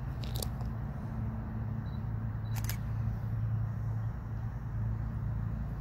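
Diesel locomotive idling, a steady low hum, with two brief sharp clicks about half a second and two and a half seconds in.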